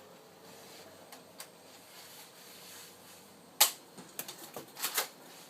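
Plastic clacks from a Nerf Vortex Praxis disc blaster being worked: one sharp, loud clack about three and a half seconds in, then a quick run of lighter clicks.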